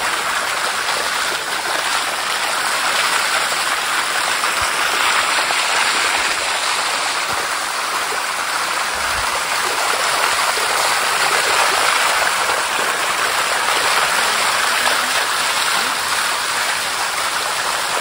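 Shallow water flowing over the calcium-carbonate rock of a small waterfall cascade, heard close up as a steady, even sound.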